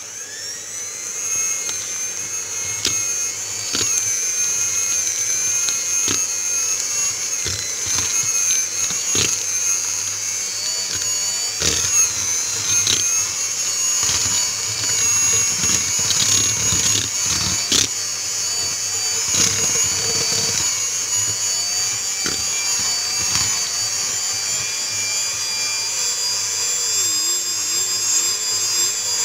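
Electric hand mixer running steadily, its two beaters creaming butter and powdered sugar in a bowl, a high motor whine with scattered knocks of the beaters against the bowl.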